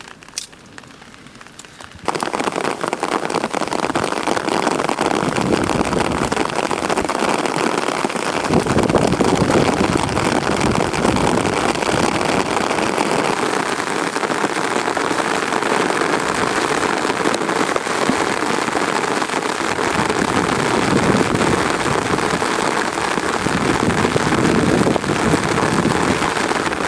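Heavy rain falling in a steady downpour that starts suddenly about two seconds in, after a couple of faint clicks.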